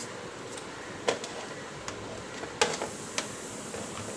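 A few light plastic clicks and knocks as a mosquito bat's plastic handle is handled and set against the work surface: one about a second in, and a couple more past the middle, over a faint steady hiss.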